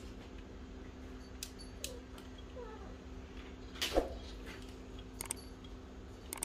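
Light plastic clicks and taps from a printer fuser unit's frame and hot roller being handled and fitted, the loudest a sharp clack about four seconds in, over a steady low hum. A cat meows faintly about two and a half seconds in.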